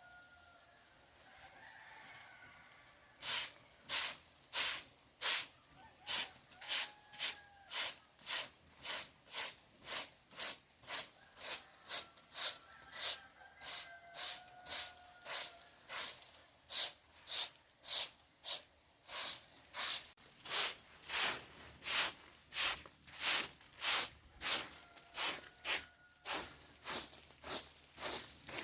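Rhythmic scraping strokes, about two a second, starting a few seconds in and keeping an even pace. A rooster crows faintly several times in the background.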